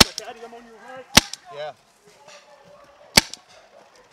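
Three sharp paintball marker shots: one at the start, one about a second later and one about two seconds after that.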